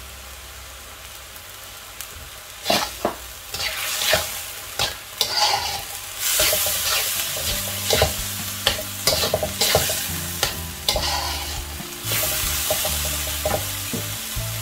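Minced chicken filling stir-frying in a wok: a metal spatula scrapes and clacks against the pan over a steady sizzle. The first two seconds or so hold only a quieter sizzle; then the stirring starts and carries on as repeated scrapes, with louder surges of sizzling.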